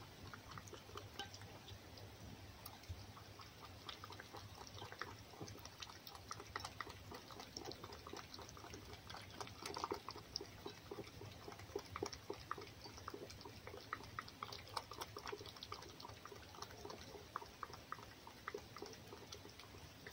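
Red fox lapping raw egg from an enamel bowl: quick, irregular wet licks and small tongue clicks, fairly faint.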